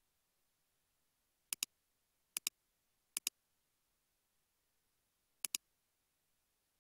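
Four sharp double clicks from computer controls, each a quick press and release, spread over a few seconds against near silence.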